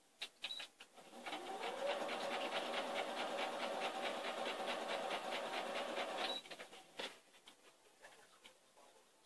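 Electric sewing machine run in one burst of about five seconds: the motor whines up to speed, stitches at a steady, rapid rate, then stops abruptly, with a few clicks before and after.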